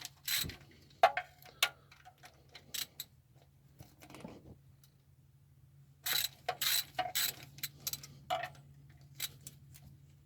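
3/8-inch ratchet clicking in quick bursts as freshly loosened oil pan bolts are run out, with scattered single clicks and taps between the bursts.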